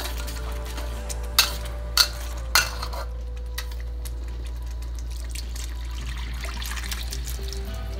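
A metal spoon stirring chilli sauce in a steel wok, knocking sharply against the pan three times in the first few seconds. Then sliced beef and its cooking liquid pour from a pot into the wok in a steady splashing stream.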